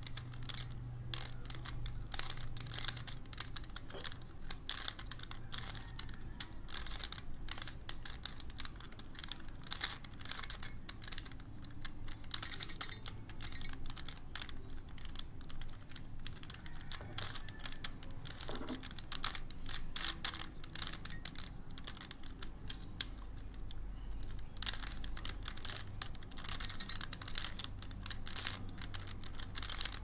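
Stickerless plastic 3x3 speed cube being turned by hand while it is solved: a dense, irregular run of quick plastic clicks and clacks as the layers snap round, over a faint low hum.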